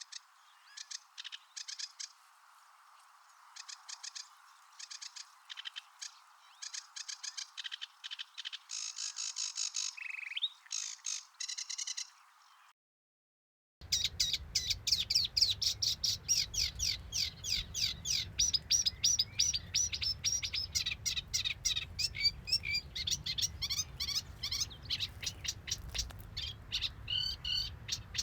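Songbird song from two different recordings. The first is a varied song of rapid chirps and short phrases. It stops about 13 seconds in, and after a brief gap a fast, unbroken run of chattering notes begins over a low rumble.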